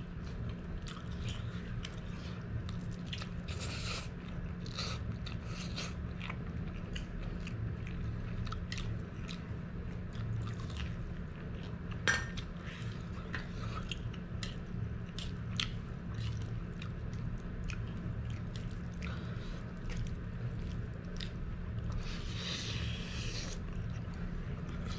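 Close-up mouth sounds of a person eating stir-fried spicy instant noodles with purslane: chewing and smacking with many small clicks, and a slurp of noodles near the end. A steady low hum runs underneath.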